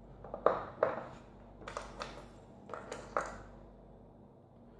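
Small metal clicks and clinks from a disassembled pin-tumbler lock cylinder and its tools being handled, a handful of separate taps over about three seconds.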